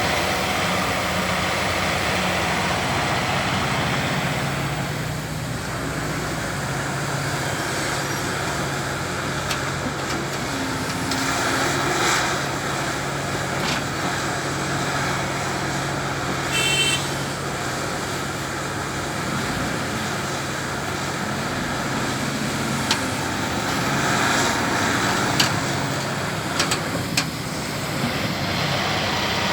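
Caterpillar 352F hydraulic excavator's diesel engine running steadily under working load, with a few sharp metallic knocks in the last few seconds and one brief high-pitched tone about two-thirds of the way through.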